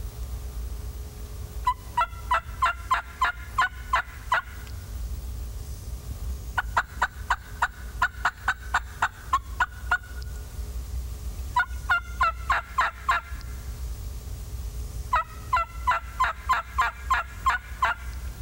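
Turkey mouth call making four runs of short, evenly spaced hen yelps, about four notes a second, with pauses between the runs. It imitates a hen to draw a gobbler in.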